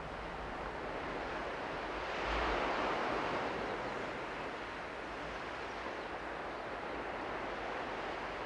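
Sea waves washing on the shore, one wave swelling louder about two seconds in, with wind on the microphone.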